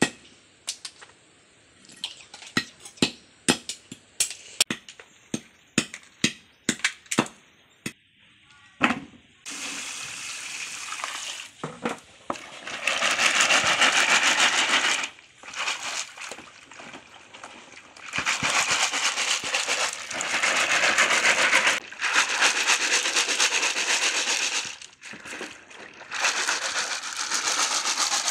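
Sharp, irregular knocks of a knife blade striking small sea snail shells on a wooden block, cracking them. From about ten seconds in, a woven basket of shellfish is swished and shaken in a tub of water, with shells rattling and water sloshing in loud spells of a few seconds each.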